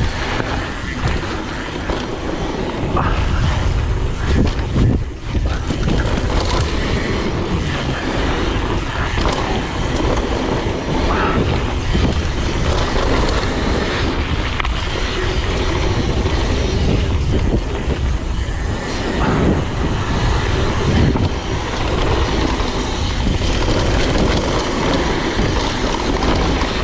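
Wind buffeting the camera microphone of a mountain bike riding fast down a downhill trail, with knocks and rattles from the bike over rough ground.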